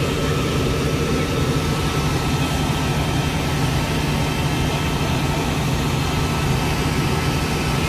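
Fire engine running steadily under load, driving its water pump, with a constant low hum under the even hiss of water jets spraying from hoses and a ladder-mounted nozzle.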